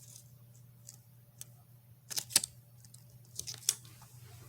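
A few light clicks and taps from a plastic smoke alarm being handled, in two small clusters about two and three and a half seconds in.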